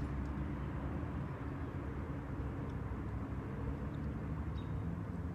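Steady low rumble of distant engine noise, with a faint shifting hum.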